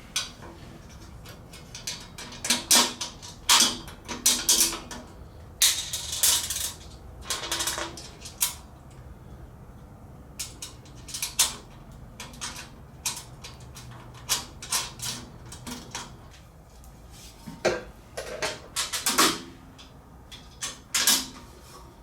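Irregular metallic clinks and clanks of steel tool-cart parts being handled and bolted together, some with a short ring.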